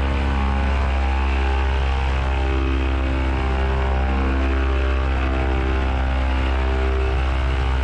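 Paramotor engine and propeller running steadily at constant throttle, a continuous drone with no change in pitch.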